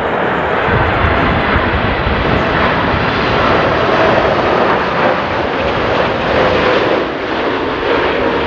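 Boeing 747-8 freighter's four GEnx turbofans on final approach and touchdown: a loud, steady jet roar with a faint whine in it that slowly falls in pitch.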